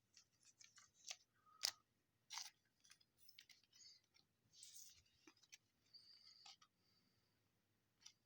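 Faint scattered clicks and short swishes of trading cards being handled and slid one behind another; the sharpest snap comes about a second and a half in.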